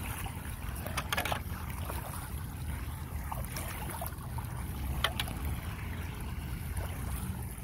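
Floodwater running down a street storm drain that has been cleared of leaves: a steady rush of draining water with wind buffeting the microphone. A few short sharp splashes or knocks stand out, about a second in and again about five seconds in.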